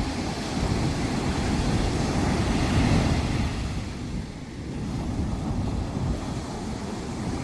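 Sea waves washing onto a sandy beach, with wind rumbling on the microphone. The surf swells about three seconds in, eases briefly, then builds again.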